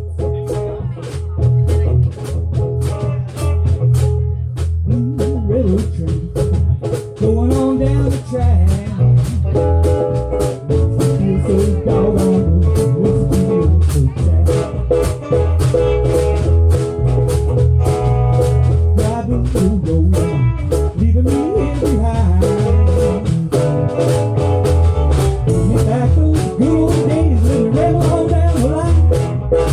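Live band music: guitar and other instruments over a steady drum beat, with a gliding lead melody entering about five seconds in.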